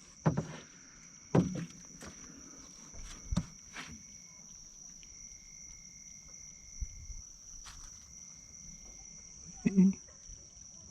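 Insects trilling in one steady high, unbroken tone, with a second, fainter tone that stops and starts. A few short knocks and handling sounds stand out over it, the loudest near the start and near the end.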